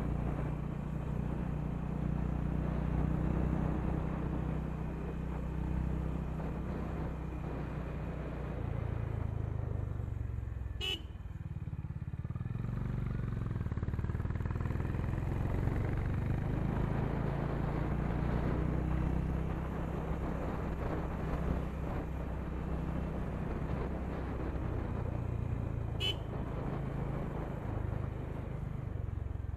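Honda H'ness CB350's single-cylinder engine running under way; its note drops away briefly about eleven seconds in, then picks up again. Two short horn beeps, one about eleven seconds in and one near the end.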